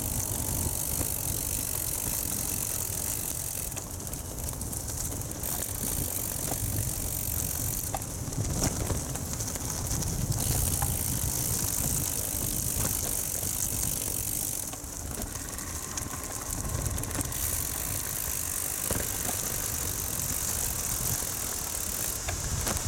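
Bicycle ridden over a bumpy dirt track: steady tyre noise with the bike rattling and clicking over bumps. Wind rumbles on the microphone throughout.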